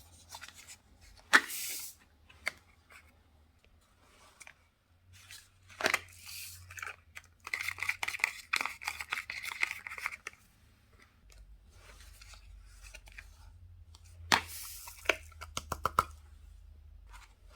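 Slime being handled with plastic bags: crinkling and tearing sounds with a few sharp clicks, and a longer crackly stretch in the middle.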